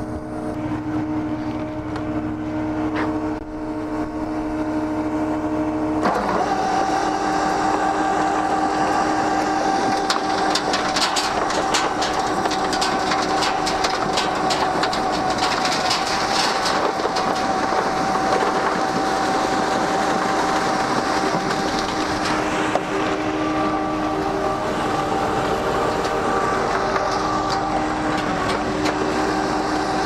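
Volumetric concrete mixer truck running with a steady mechanical hum. About six seconds in, the sound changes: a higher steady whine and a dense rattle join in as the mixing auger runs, carrying rock, sand and cement up to the chute, and they keep on to the end.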